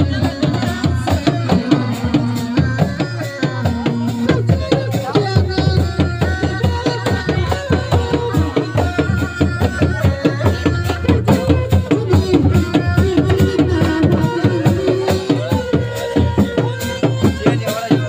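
Seni reak ensemble playing: fast, dense dogdog drumming with a held, bending melody line over it.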